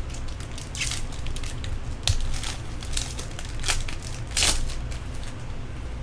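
Crinkling and crackling of a foil baseball-card pack wrapper being opened and handled, in short uneven bursts, with a sharp click about two seconds in, over a steady low hum.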